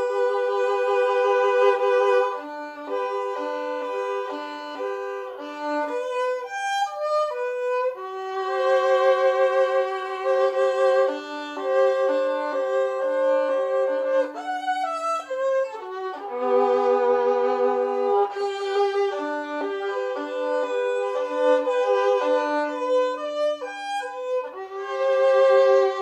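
Solo violin bowed, playing a melody in which two notes often sound together (double stops), with some held notes and quick runs.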